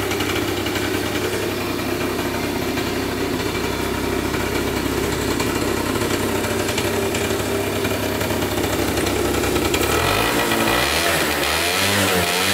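A SYM Jet 50 scooter's 50 cc engine idling steadily, then revved up and down a few times from about ten seconds in.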